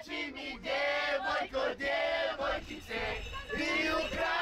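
A group of people, men loudest, singing loudly together in short chant-like phrases.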